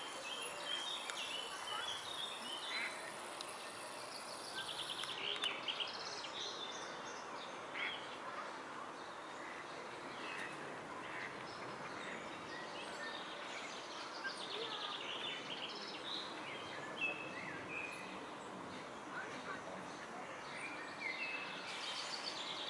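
Small songbirds chirping and singing in short, scattered phrases over a steady outdoor background noise.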